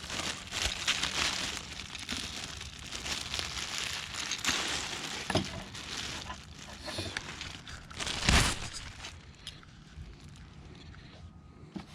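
Crinkling and rustling of plastic packaging while a new fuel pump assembly is handled, with scattered clicks and one louder knock about eight seconds in.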